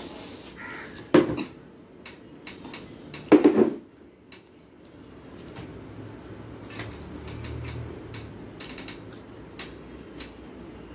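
Eating by hand from a stainless steel plate, with small clicks of fingers on the steel and soft chewing, broken by two short, loud, harsh calls about two seconds apart.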